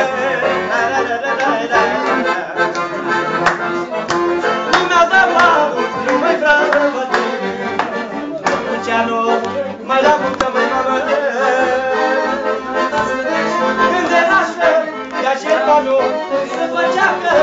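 Accordion music playing.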